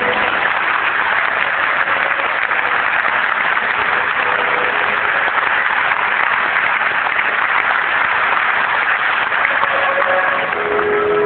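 Theatre audience applauding: steady, dense clapping. Orchestral music comes back in near the end.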